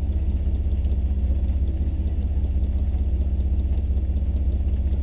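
Chevrolet S-10 Blazer engine idling steadily, heard from inside the cab, with a low, even, rapid throb.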